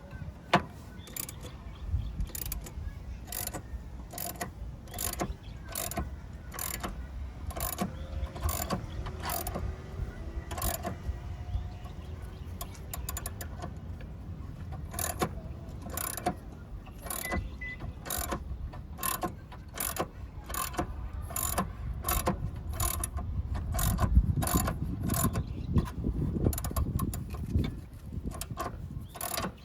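Ratchet wrench clicking in runs of strokes, sometimes spaced out and sometimes quicker, with short pauses between runs.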